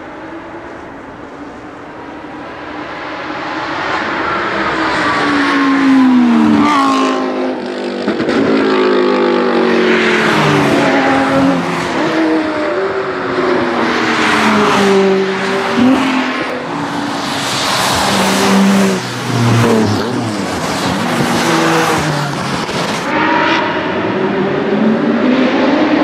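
Race car engine accelerating hard up through the gears, growing louder as it nears. Its pitch climbs and drops back at each gear change, many times over.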